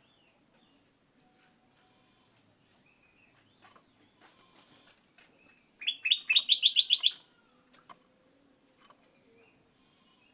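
Oriental magpie-robin (kacer) singing: faint scattered whistles and chirps, with a loud, rapid run of about eight sharp repeated notes, stepping up in pitch, about six seconds in.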